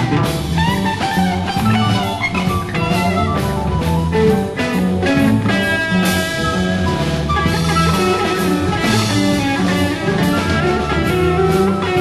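Instrumental early-1970s German progressive rock: drum kit keeping a steady beat under bass and sustained keyboard lines, with no vocals.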